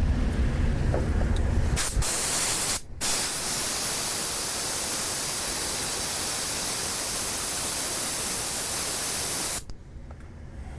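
Spray can hissing: a short burst, then a long steady spray of about seven seconds that cuts off suddenly, cooling a freshly soldered coax-shield joint on a PL-259 reducer.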